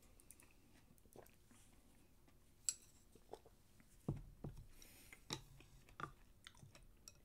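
A person chewing food with the mouth closed: faint wet mouth clicks, one sharper click and a few soft low knocks about two-thirds of the way through.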